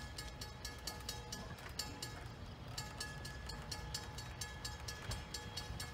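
Railroad crossing bell ringing in rapid, even strikes, about four a second, warning of an approaching train, with a low rumble underneath.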